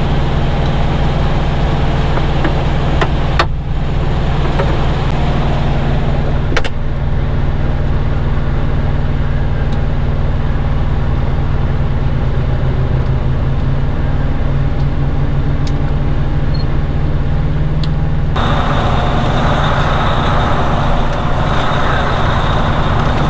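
Heavy diesel truck engine idling with a steady low, pulsing rumble, and two short clicks about three and six seconds in.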